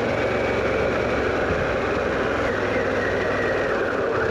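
Harley-Davidson Pan America's 1250 cc V-twin engine running under way, with wind and road noise rushing over it. The engine note sags and then picks up again near the end.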